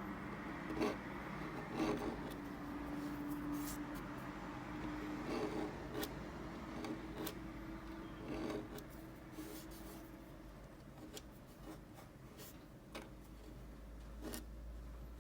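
Hand-handling sounds: scattered light clicks and rubbing, with a faint steady hum that fades out about halfway through.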